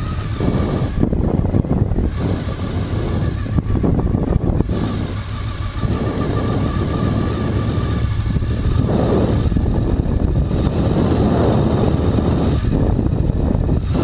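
Motorcycle engine running as the bike rides across a grassy field, heard from a microphone mounted on the bike, with wind noise over it.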